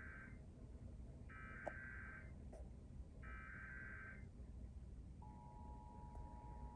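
Emergency Alert System SAME header for a Required Monthly Test, played faintly. The first burst of harsh digital warbling ends, then two more bursts of about a second each follow, a second apart. About five seconds in, the steady EAS attention tone begins.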